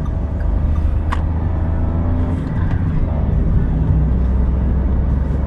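Daihatsu Rocky 1.2's three-cylinder petrol engine pulling the car up through the speeds, heard from inside the cabin as a low steady drone with road noise. The drone dips briefly about three seconds in, and there is a single sharp click about a second in.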